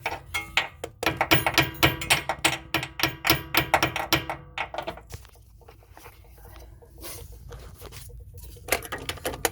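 Small hammer tapping repeatedly to seat the lip of a new tie rod boot, a quick run of sharp taps at about four a second with a faint metallic ring. It stops about five seconds in, and a few more taps come near the end.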